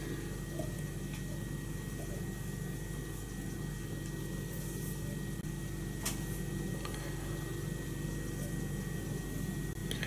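Quiet room tone: a steady low hum with a thin high whine, broken by a faint click about six seconds in and a softer one a second later.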